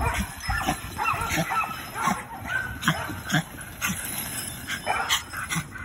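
Dogs yipping and whimpering, mixed with repeated sharp clinks of a heavy chain dragged over concrete by a dog.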